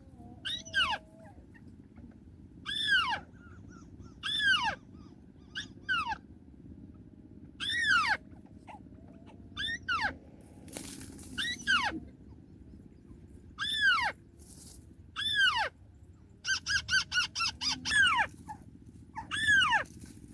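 White-browed crake calls: a series of short, sharply falling notes, repeated every second or two, with a quick chattering run of short notes about three-quarters of the way through. The calls are lure calls for trapping, played from a phone.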